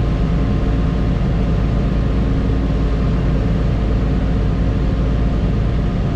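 Tractor and combine diesel engines running steadily while the grain cart is driven alongside the combine: a loud, constant low drone with steady hums.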